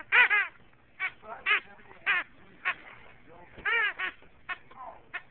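A squeaky frog toy squeaking about ten times in short, irregular squeezes as a bullmastiff chews it. The squeaks near the start and just before four seconds in are longer.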